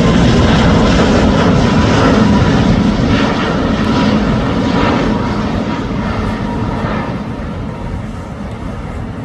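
Boeing 787 Dreamliner's jet engines running loud, a rushing rumble that gradually dies down over the last several seconds.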